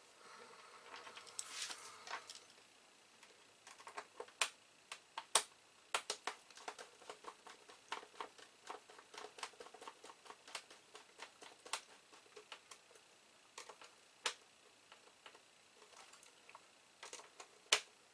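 Faint, scattered small clicks and taps of plastic computer-case parts and screws being handled during reassembly, with a short rustle about a second in.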